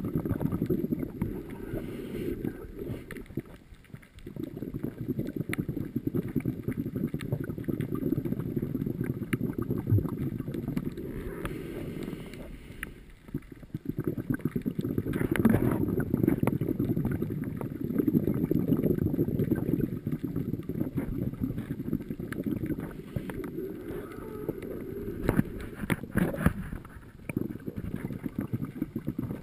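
Muffled underwater rumble of a scuba dive, heard with the microphone under water, with the bubbling and hiss of divers' breathing rising now and then and easing off for a moment several times.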